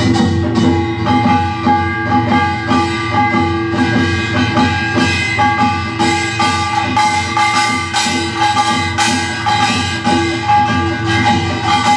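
Korean traditional rhythm music: fast, dense percussion strokes driving steadily under several sustained ringing tones.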